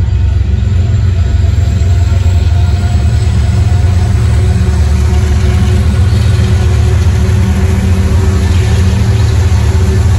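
Mid-train distributed-power diesel locomotives of a freight train (UP EMD SD70M 3957, GE AC45CCTE 8078 and GE AC44CW 6179) passing at slow speed, their engines running with a steady pitch over the heavy rumble of the train. The engine sound comes in about half a second in and holds as the units roll by.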